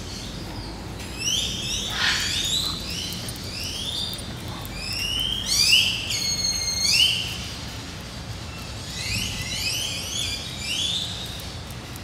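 Bird calls: rapid series of short, high, rising chirps and whistles, in three bunches about two seconds long, the middle bunch the loudest.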